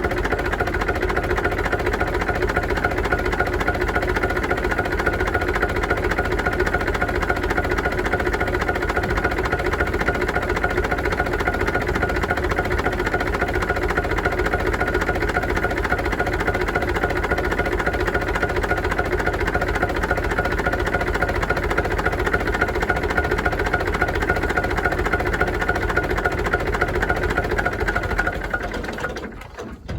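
UTB U650 tractor's four-cylinder diesel engine running steadily, its diesel clatter even throughout; the sound falls away near the end.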